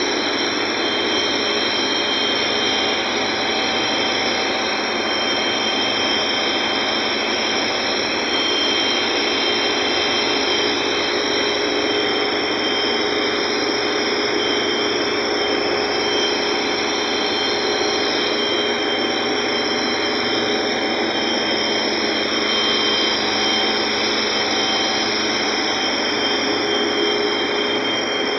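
Ship's engine room machinery running: a loud, steady, dense mechanical noise with a steady high-pitched whine and a fainter tone that comes and goes.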